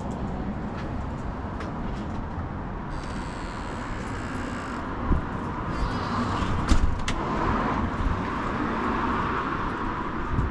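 Street traffic: a car driving past, its tyre and engine noise swelling through the second half, with a couple of short knocks around the middle.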